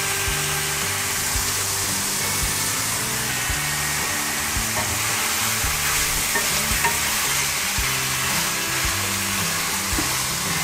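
Codfish, peppers and onions sizzling in a frying pan while a wooden spoon stirs and turns them, with light scrapes and taps of the spoon against the pan scattered through the steady sizzle.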